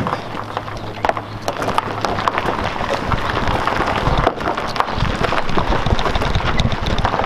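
Gravel crunching and popping under the tyres of a 1951 Chevrolet 3600 pickup being pushed by hand, mixed with footsteps scuffing on the gravel. The crunching grows heavier from about three seconds in.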